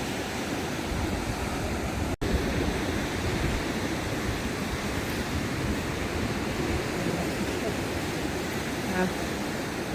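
Steady wash of ocean surf, with wind rumbling on the microphone. The sound drops out for an instant about two seconds in.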